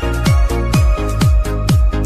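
Electronic dance music with a fast, steady kick drum, about four beats a second, under held synth notes.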